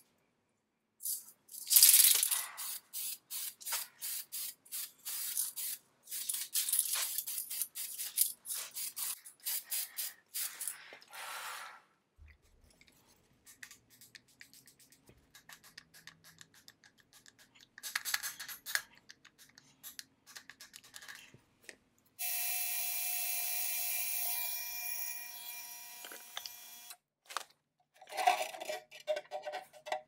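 Aerosol clear coat sprayed in a quick series of short hisses for about ten seconds, followed by faint knocks of metal parts being handled. Later a steady buzzing hum with several steady tones runs for about five seconds, from a small stainless parts-cleaning tank.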